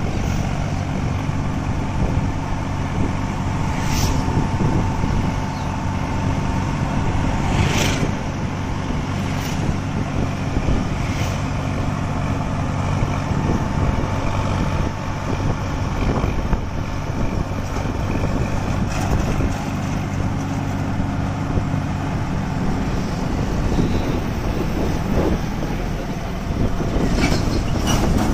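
Sonalika DI 47 RX diesel tractor engine running steadily on the road while towing a thresher, with road and wind noise and a few sharp knocks or rattles.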